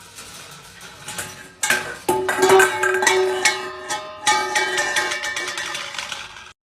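Music with a pitched melody over percussive strikes, growing louder about a second and a half in and cutting off suddenly near the end.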